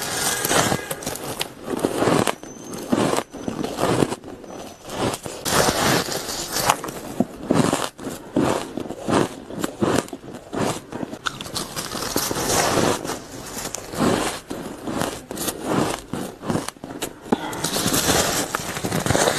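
Ice being bitten into close to the microphone: a rapid, irregular run of sharp crunches and cracks, one bite after another.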